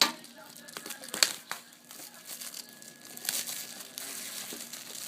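Trading card pack wrapper crinkling and tearing as the pack is opened, with a few sharp crackles near the start and a longer stretch of rustling about three seconds in.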